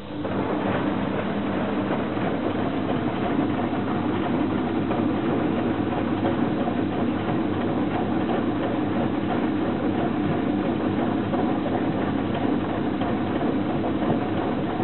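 Hoover Electra 540 Dual Spin front-loading washing machine running: its drum motor starts suddenly, runs steadily for about fifteen seconds, then cuts off. The drum bearings are bad.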